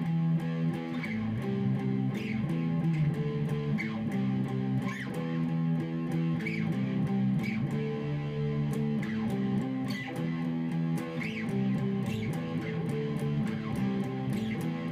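Electric guitar playing a riff of picked two-note chords on the A and D strings, the chord shapes sliding up and down the neck and changing every fraction of a second.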